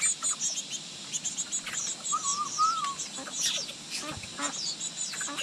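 Many young birds cheeping: a dense, continuous run of quick, high chirps that fall in pitch, with a short warbling whistle about two seconds in and a few lower calls mixed in.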